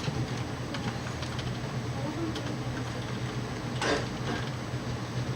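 Light handling noises: scattered small clicks and a short scrape or rustle about four seconds in, over a steady low hum.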